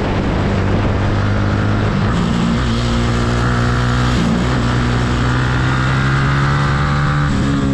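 Yamaha R15's single-cylinder four-stroke engine running under load while riding, its note stepping in pitch a few times, with a brief dip about four seconds in. Wind rushes over the microphone underneath.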